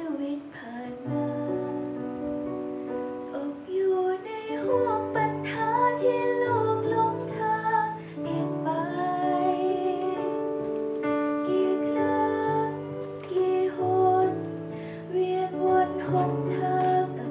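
Young female singer singing a Thai Christian devotional song into a handheld microphone over instrumental accompaniment, with long held chords and bass notes that change every second or two.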